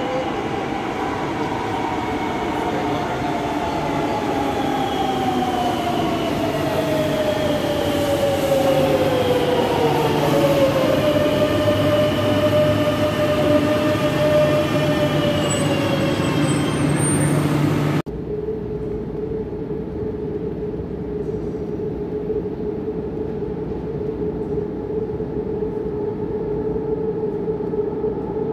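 Madrid Metro train pulling into the platform, its electric traction motors whining in several tones that slide down in pitch as it brakes, then hold a steady tone as it nears a stop. About two-thirds of the way in the sound cuts abruptly to a steadier, lower hum with a single held tone.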